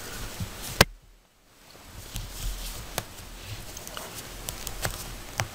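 Knitting needles clicking now and then as stitches are worked, over a soft rustle of yarn being handled; one sharp click a little under a second in is the loudest. The sound drops out briefly just after it.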